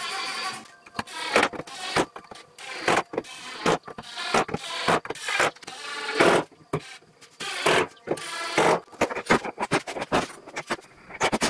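Cordless Festool impact driver driving screws through an oak batten into the door boards, in a series of short bursts with brief pauses between screws.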